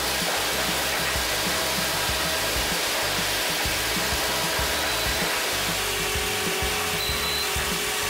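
Wood-processing machine running with a loud, steady rushing noise and irregular low thuds; a steady hum joins about six seconds in.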